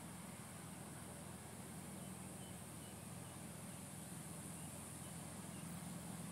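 Distant Cessna 152's four-cylinder Lycoming engine running at the far end of the runway: a faint, steady low drone that grows a little louder near the end.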